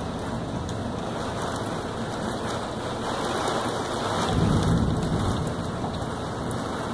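Heavy rain pouring steadily during a severe thunderstorm, with a low rumble of thunder that builds about three seconds in, peaks a little later and fades.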